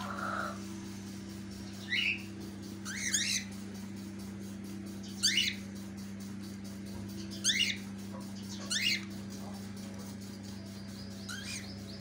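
Cockatiels giving short, sharp chirps, about six of them a second or two apart, each a quick downward sweep in pitch. A steady low hum runs underneath.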